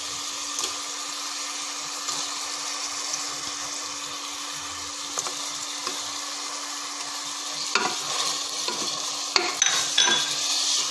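Onion, tomato and green-chilli masala sizzling in oil in a pressure cooker as raw mutton pieces go in and are stirred with a wooden spoon. The frying hiss is steady, with scattered knocks and scrapes that grow louder and more frequent near the end.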